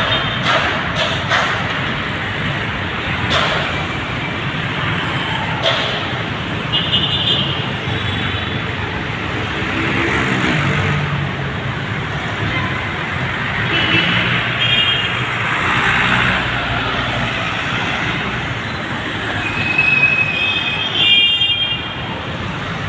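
Busy city road traffic: engines and tyres of passing cars and trucks run steadily, with short horn beeps about a third of the way in, halfway through and near the end.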